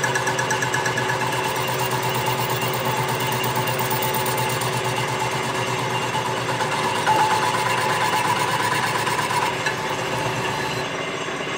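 A machine running steadily with a fast, even rhythmic chatter and a few steady tones. A higher tone rises out of it for a couple of seconds past the middle.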